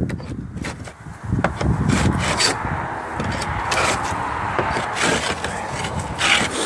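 Rubbing and scraping on roof slates, broken by several light knocks and clicks, as slates and tools are handled during a slate repair.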